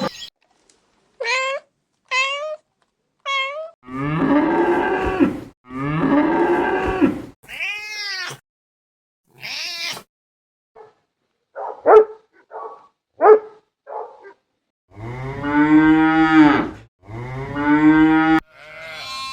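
Domestic cats meowing in short calls that rise and fall, alternating with cattle mooing in long, deeper calls: two moos in the first half of the clip and two more near the end.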